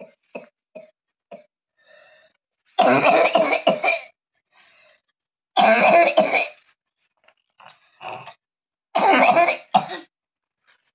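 A young boy's dry cough, in three loud fits about three seconds apart, each about a second long, with a few short fainter coughs between them. It is a dry cough that brings nothing up.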